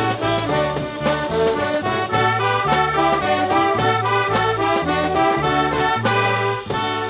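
Instrumental band music with no singing: brass and accordion play the melody over a bass that moves between notes in an even beat.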